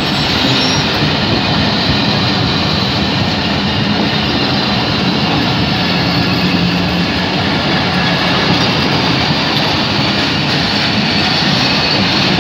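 Two passenger trains passing each other at speed, heard through an open carriage window: a loud, steady rumble of steel wheels on rails as the coaches of the other train run by close alongside.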